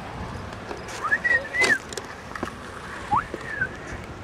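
Clear whistled notes that glide up to a high held pitch and back down, in two short phrases about two seconds apart, with a couple of light clicks.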